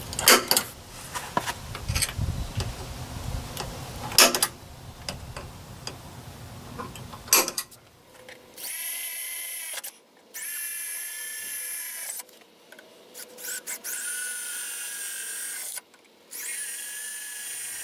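A few sharp knocks and some handling noise, then a cordless drill drilling screw holes in the truck's metal bumper: four runs of high motor whine, each a second or two long, with short pauses between.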